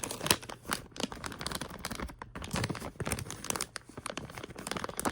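Plastic packaging crinkling and rustling as it is handled, a dense run of irregular crackles.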